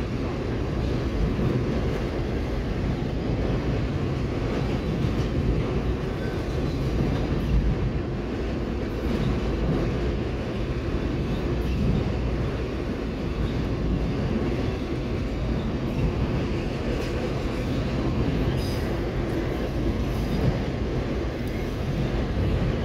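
Freight train of autorack cars rolling past on the rails: a steady, low rolling noise of steel wheels on track that does not let up.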